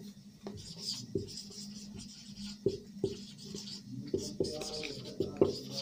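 Marker pen writing on a whiteboard: faint scratching strokes with a few light ticks as the tip meets and leaves the board.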